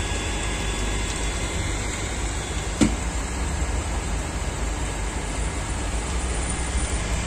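Steady running noise of a small clip-on aquarium cooling fan (RS Electrical RS-331) hung on the tank, with a single sharp click about three seconds in.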